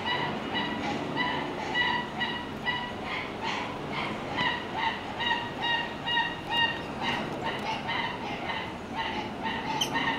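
Prairie dogs calling: a steady run of short, high, chirping barks, about two to three a second.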